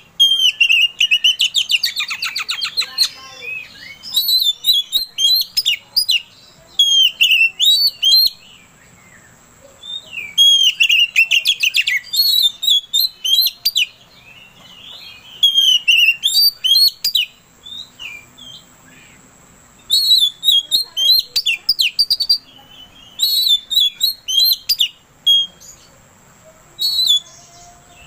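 Oriental magpie-robin singing in loud phrases of quick, varied whistles and chirps, with a fast rattling trill near the start and short pauses between phrases.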